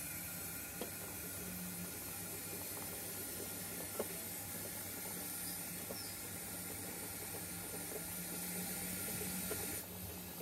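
A 7mm-scale model goods train rolling slowly along the track: a steady hiss and low hum, with a few faint clicks from the wheels, the sharpest about four seconds in.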